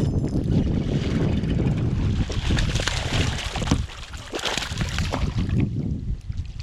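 Wind buffeting the microphone with splashing water as a hooked largemouth bass is fought and brought up to a kayak.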